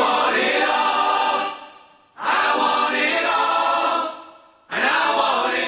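Choir-like, multitracked vocal harmonies singing three held chords, each swelling and fading away before the next. No instruments are heard under them.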